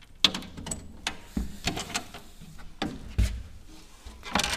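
A small hinged console door on a boat being opened and let down by hand: a series of knocks and clicks, with two dull thumps, the louder one about three seconds in, and a rattle of clicks near the end.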